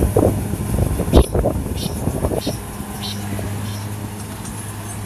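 Kubota combine harvester engine running steadily. In the first two seconds or so there is a cluster of low thuds and rustling, with one sharp thump about a second in.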